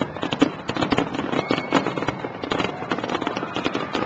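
Aerial firework shells bursting in rapid succession: a dense, unbroken run of bangs and crackling.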